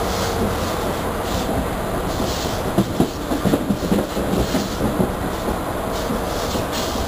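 Passenger train running along the track, heard from an open coach window: steady rolling noise, with the wheels clattering over the rail in a run of sharp clicks from about three to five seconds in.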